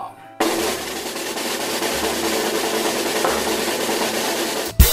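Snare drum roll sound effect, a fast steady rattle that ends in a sharp cymbal crash near the end.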